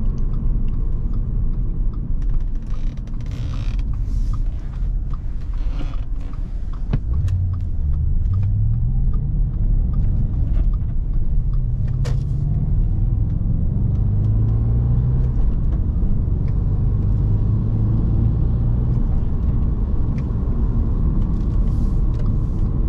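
2009 Audi S5's 4.2-litre V8 heard from inside the cabin, the revs climbing twice, about seven and ten seconds in, then holding steady at cruise. Steady road rumble from the tyres on wet pavement runs underneath.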